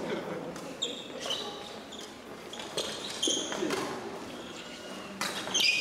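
Badminton rally on a wooden sports-hall floor: sharp racket hits on the shuttlecock, footfalls, and short high squeaks of court shoes as the players move. There are faint voices in the background.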